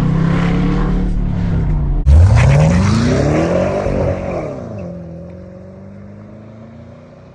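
Hellcat-swapped Dodge Charger's supercharged 6.2-litre Hemi V8 running, then about two seconds in a hard full-throttle pull: the engine note climbs steeply, then falls and fades as the car goes away.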